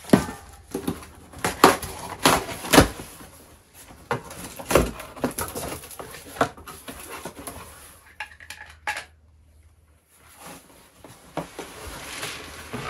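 Cardboard boxes being handled: a run of sharp knocks and thumps as boxes are moved and set down, then rustling of packing as a box is opened and searched.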